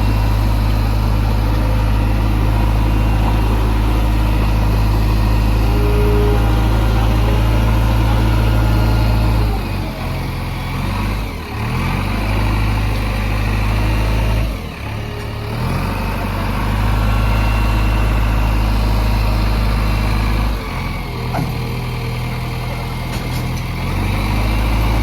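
Diesel engine of a JCB 3DX backhoe loader running loud and steady, then dropping and changing its note several times in the second half as the revs vary.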